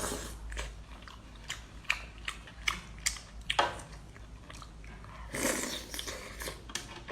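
A person eating close to the microphone: bites and chewing with many short, sharp wet clicks, busier about five and a half seconds in.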